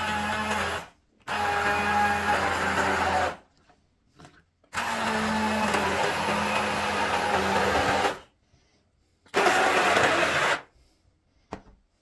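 Electric countertop blender pulsed in separate bursts, chopping and puréeing citrus fruit, ginger and water. It is running at the start and stops about a second in. It then runs three more times, for about two seconds, about three and a half seconds and about a second, with short silent pauses between.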